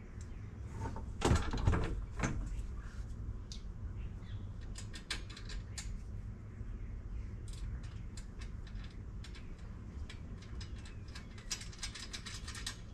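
Small metal clicks, taps and knocks as a rear cargo Molle panel is fastened by hand with a screw, washers and a nut. There are a few louder knocks a second or two in and a quick run of clicks near the end.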